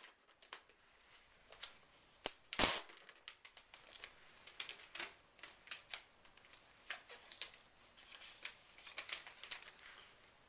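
A plastic network unit and its packaging being handled: scattered light clicks and taps, with one loud knock a little under three seconds in.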